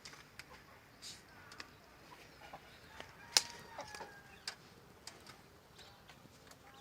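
Domestic chickens clucking softly among scattered small clicks and scratches, with one sharp click about halfway through.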